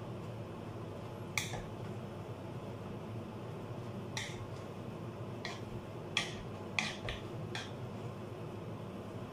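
Metal potato masher knocking against the inside of a pot while mashing cooked rice: about six sharp clacks at irregular intervals, over a steady low hum.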